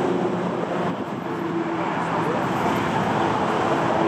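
Airbus A320-216's CFM56 jet engines at taxi idle: a steady, even rumble with a low hum running through it.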